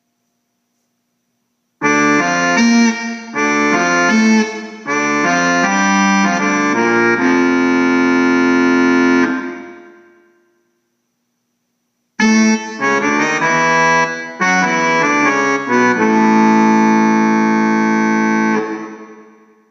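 Casio electronic keyboard playing two short phrases of chords and melody, each ending on a long held chord that fades away.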